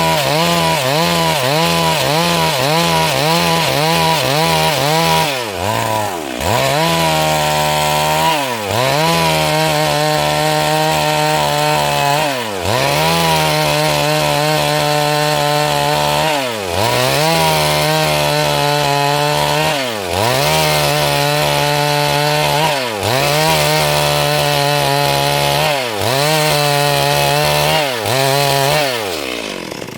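Stihl MS 382 two-stroke chainsaw cutting lengthwise through a Siris log at high revs. The engine speed wavers quickly at first, then sags and picks back up every few seconds as the chain works through the wood. Near the end the revs fall away.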